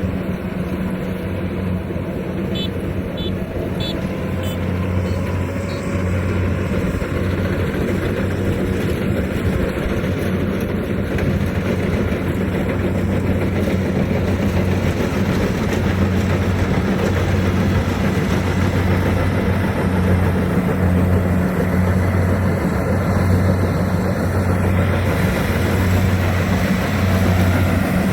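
Kubota rice reaper's engine running steadily as the machine harvests, a constant low hum with a broad mechanical rumble over it, growing slightly louder toward the end.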